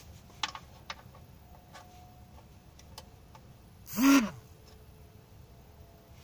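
Ratchet and 14 mm socket clinking against the oil-pan drain plug as they are fitted, a few light metal clicks in the first second. About four seconds in, with the wrench on the plug, a short loud hoot that rises and falls in pitch.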